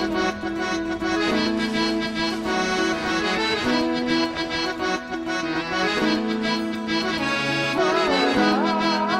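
Instrumental background music: sustained reedy chords changing every second or two, with a wavering melody line sliding up and down near the end.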